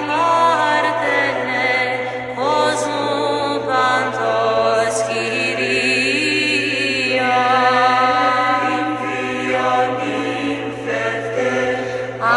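Greek Orthodox Byzantine chant: sung hymn in long, held notes with slow, ornamented melismatic turns, continuing without break.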